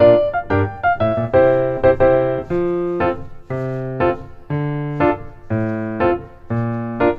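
Background music: piano or electric piano playing chords and a simple melody, with a note or chord struck about every half second to a second.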